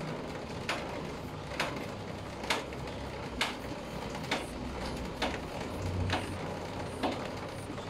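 Mini hand bicycle pump being stroked, with a short hiss of air on each stroke, about one a second and nine in all.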